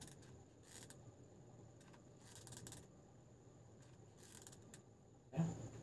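Quiet hand-work sounds from applying hot glue with a hot glue gun: a few faint soft clicks and scrapes as the trigger is squeezed and the nozzle drags on the plastic base, then a louder handling knock near the end.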